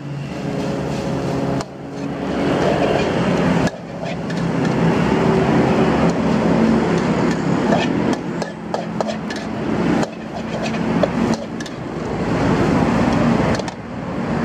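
Fried rice sizzling in a steel wok as a metal spatula stirs and scrapes it, with short clanks of the spatula against the wok.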